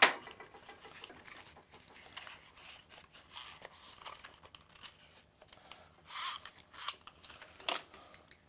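Handling a cardboard box of staples and loading them into a cordless stapler: light rustling and small clicks, with a sharp click at the start and a few louder clicks near the end.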